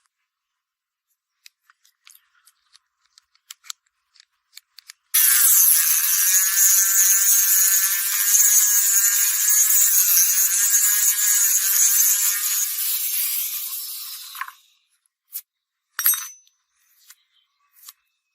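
Light clicks and taps, then a small power tool starts abruptly and runs steadily with a slightly wavering pitch for about nine seconds, winding down over the last couple of seconds, followed by a few sharp clicks.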